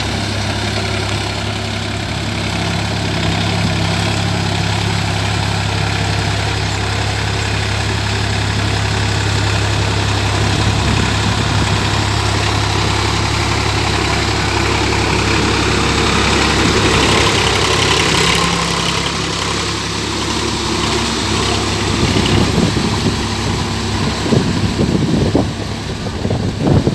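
Sonalika tractor's diesel engine running steadily with a deep, even hum. It turns into an uneven, gusty rumble in the last few seconds.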